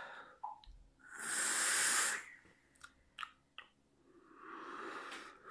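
A drag on an e-cigarette with a dripping atomizer: a loud hiss of air drawn through the atomizer for about a second, starting about a second in, then a few small clicks, then a softer, longer breath of vapour blown out near the end.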